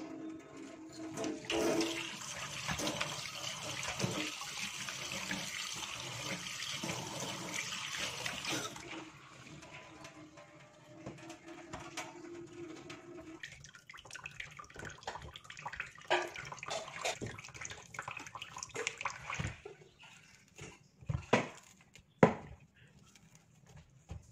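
Tap water running from a hose into a stainless steel kitchen sink. The stream is loudest for the first nine seconds, then softer, with scattered knocks and splashes in the second half.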